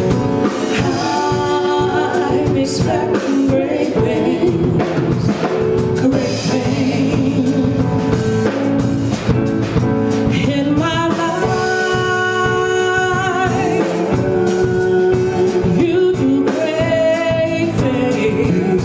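A woman singing a solo into a handheld microphone, over instrumental accompaniment with drums. She holds long notes with vibrato.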